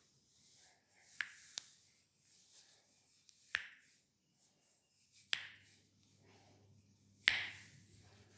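Five sharp snaps during a leg massage, irregularly spaced, the last one the loudest.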